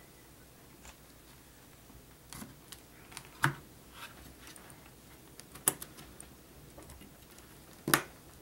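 Scattered sharp plastic-and-metal clicks and light knocks of computer parts being handled, the three loudest about three and a half, five and a half, and eight seconds in.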